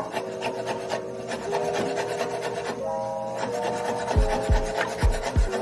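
Cleaver chopping boiled banana peel on a wooden cutting board: quick, repeated chops many times a second, the blade knocking the board, with a few heavier low thumps near the end. Soft background music plays underneath.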